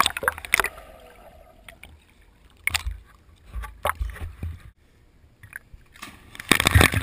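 Pool water sloshing and slapping against a camera held half-submerged at the surface, with a few sharp slaps scattered through. Near the end comes a loud splash as a child goes into the pool.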